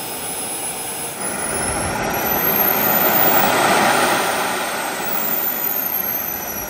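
Small hobby model jet turbine (a size-60 unit of about 13 pounds thrust) running and being throttled up and back down. Its high whine climbs to a peak about four seconds in and then falls away, with a rush of exhaust that swells and fades with it.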